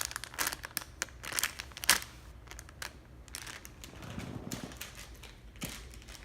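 Plastic squishy packaging crinkling as the sealed squishy inside is squeezed and handled: irregular crackles, busiest in the first two seconds, then sparser.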